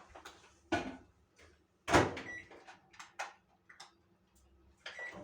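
Microwave oven being loaded and set: a couple of knocks, then the door shut with a thud about two seconds in. A few short keypad beeps follow, and the oven starts to hum right at the end.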